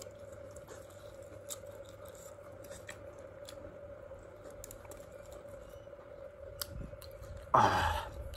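Close-up eating sounds from a man chewing grilled spicy ribbon fish and rice: soft wet clicks and smacks of chewing over a steady faint hum. Near the end comes one loud, brief open-mouthed exhale that falls in pitch.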